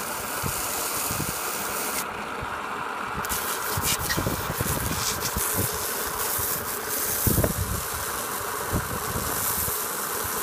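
Honda walk-behind mower's small single-cylinder engine running at a steady speed, a constant buzzing drone with a few low knocks from handling.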